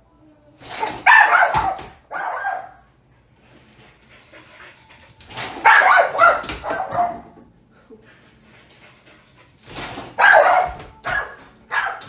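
Dog barking excitedly in three loud bursts, with whimpering sounds between them.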